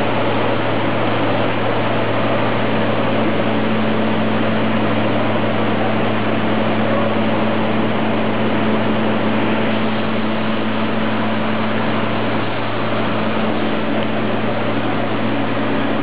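A 20-ton-per-day rice mill plant's machinery running: a steady, loud mechanical drone with a constant low hum.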